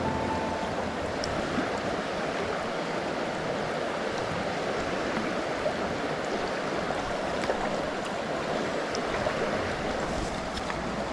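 Shallow, clear river flowing over a stony bed: a steady rush of running water.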